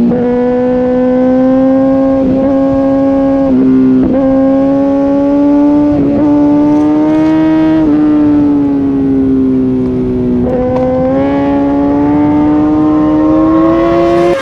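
Sport bike's inline-four engine at high revs under full throttle, its pitch climbing steadily and breaking briefly a few times as it changes up through the gears.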